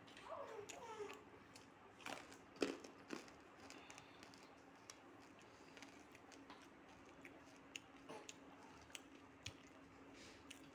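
Near silence with a faint steady hum, a brief baby coo in the first second, and scattered soft clicks and rustles, the loudest about two and a half seconds in.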